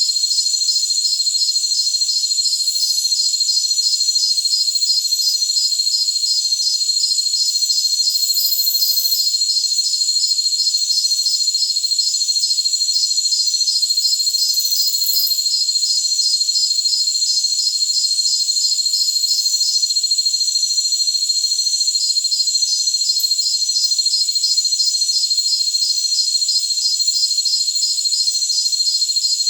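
Chorus of jungle crickets: a steady high trill runs under a second insect's rapid, evenly spaced pulsed chirping. The chirping pauses for about two seconds roughly two-thirds of the way through.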